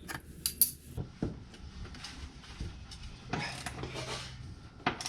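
Hand tools and metal parts clinking and knocking during work on bolts under a vehicle, with the sharpest knock about half a second in and a stretch of scraping or rubbing about three seconds in.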